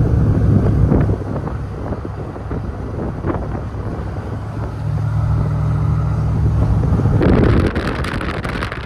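Steady low engine and road drone of a moving vehicle, heard from inside. About seven seconds in, a louder rushing noise joins for a couple of seconds.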